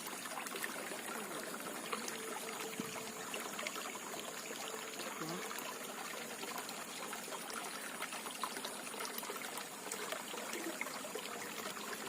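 Flowing water trickling and pouring steadily, an even wash with small splashes, under a thin steady high-pitched tone that fades out near the end.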